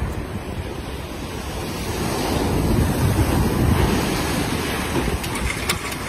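Surf breaking and washing up the beach, swelling loudest midway, with wind buffeting the microphone. A few sharp clicks near the end.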